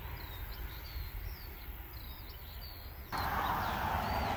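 Small birds chirping over and over in short, high calls above a low rumble. About three seconds in, a louder steady rush of motorway traffic sets in abruptly.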